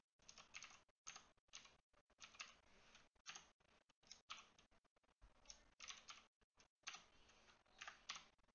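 Faint typing on a computer keyboard: irregular key clicks, about two a second, with short gaps between them.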